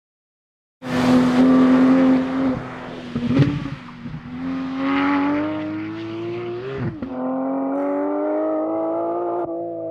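2018 Porsche 911 GT3's four-litre naturally aspirated flat-six engine running hard. It cuts in about a second in and holds a steady note, dips, then climbs in pitch twice, each climb ending in a sudden drop in pitch as it shifts up.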